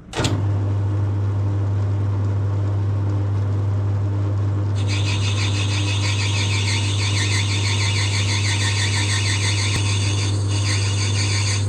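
Small metal lathe switched on and running with a steady hum; from about five seconds in, a high, wavering cutting noise as the tool turns down a brass bar to make dowels.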